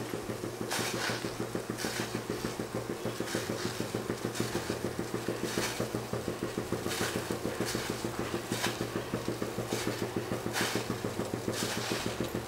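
Rice-flour dumplings dropped one by one into boiling water in a steel pan: a short soft plop or splash about once a second, a dozen or so in all, over the steady low rumble of the water on the boil.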